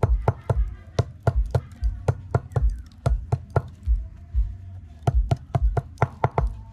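Claw hammer striking a welding rod on an iron block, sharp metallic knocks about three to four a second with a short pause after the middle. It is knocking the flux coating off the rod to bare the stainless core wire.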